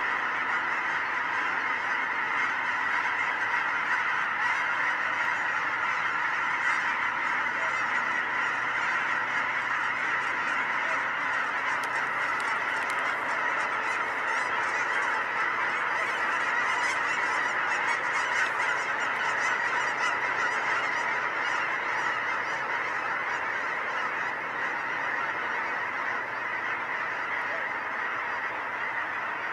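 A large flock of geese calling in flight: a dense, unbroken chorus of many overlapping honks, easing off slightly near the end.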